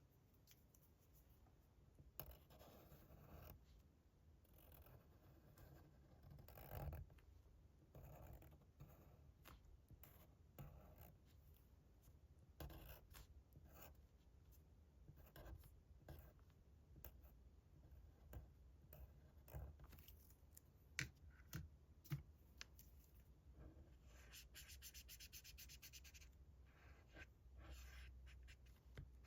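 Faint scratching of a drawing tool moving across paper in short strokes, with a denser run of quick back-and-forth scratching, like shading or colouring in, near the end.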